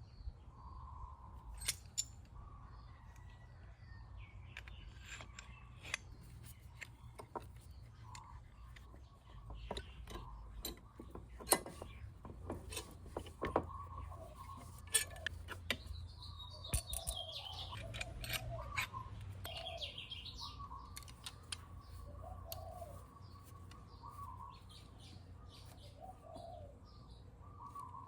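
Scattered sharp metallic clicks and clinks of hand tools and parts being handled during scooter brake pad work, with birds chirping throughout and a low steady hum.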